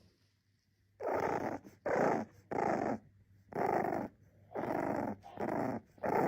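A dog growling in about eight short, rhythmic bursts, starting about a second in.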